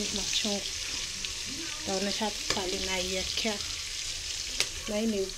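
Onions frying in oil in a metal cooking pot: a steady sizzle.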